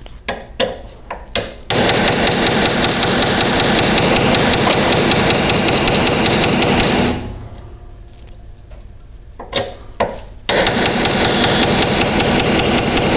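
Hammer striking a brass punch against the steel rear sight of a Smith & Wesson M&P Shield slide, drifting the sight out of its dovetail. A few single taps, then a long run of rapid, even taps, a pause with a couple of single knocks, and a second rapid run.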